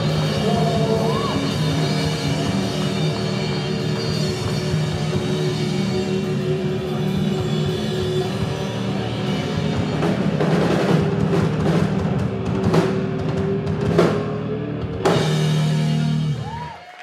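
Live rock trio of drum kit, electric bass and electric guitar playing the closing bars of a song: held chords over the drums, then a run of drum hits and cymbal crashes in the second half, and a final chord that rings and cuts off just before the end.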